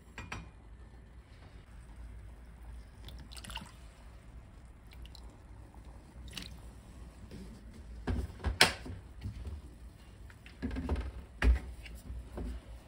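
Seasoning being measured into a metal saucepan: a metal measuring spoon clinking and knocking against the pan, with small splashes of liquid as it is tipped in. There are a few sharp clinks, the loudest about two-thirds of the way through and another near the end.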